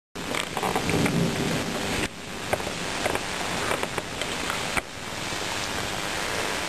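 Steady heavy rain during a thunderstorm, with scattered sharper drop hits and a low thunder rumble in the first second or two. The sound drops abruptly twice.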